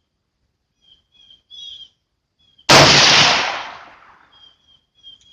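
A single shot from a .300 Blackout AR-15 rifle about two and a half seconds in, very loud, its report dying away over a second or so. Small birds chirp repeatedly around it.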